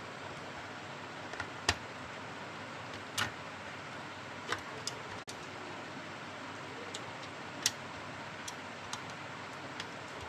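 Scattered sharp clicks and taps of plastic parts being handled and pressed together as the handle and cover of a Panasonic electric iron are fitted back on, over a steady hiss.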